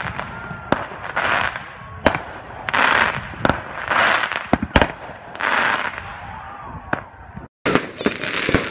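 Fireworks going off: sharp bangs of bursting shells, spaced irregularly, with half-second swells of crackle between them. The sound cuts out briefly near the end, and denser bangs follow.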